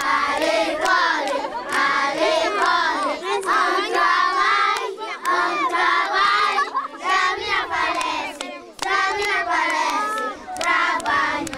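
A large group of children chanting a school chant in unison close to the microphone, with hand clapping. Their words mean 'at school we work, we must not be lazy... to work!'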